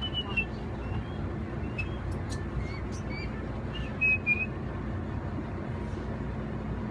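Birds calling with short, high whistled chirps scattered throughout, two close together about four seconds in, over the low steady hum of the boat's engine.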